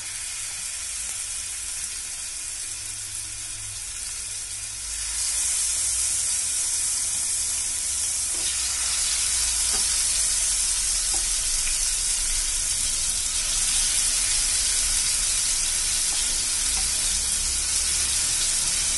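Marinated snapper pieces sizzling as they shallow-fry in hot oil, the sizzle stepping up in loudness about five seconds in as more pieces go into the pan.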